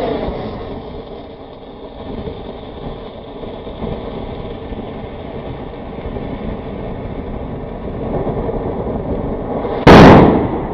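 Mini fountain-bomb firework spraying sparks with a steady rushing hiss. Near the end it goes off with a single very loud bang.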